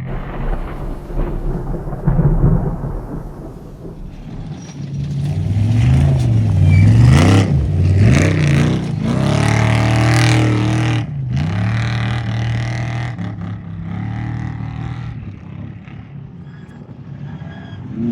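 Off-road race truck engine revving, its pitch rising and falling through the gears as it approaches and passes, loudest about halfway through, then holding a steadier note and fading as it moves off.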